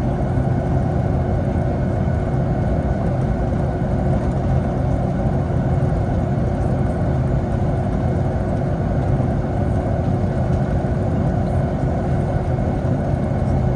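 Steady jet cabin noise inside a Boeing 757: the engines and airflow make an unbroken drone with a constant low hum and a steady tone.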